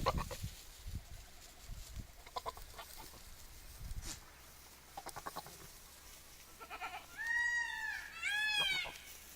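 Goat bleating twice near the end, two loud calls that rise and fall in pitch, one right after the other. Before them come a few short, rapidly pulsed calls.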